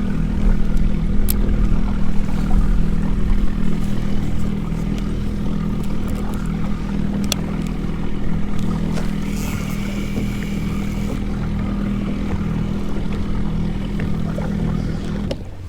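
Minn Kota electric motor on a kayak running at a steady speed with an even hum, then cutting off shortly before the end.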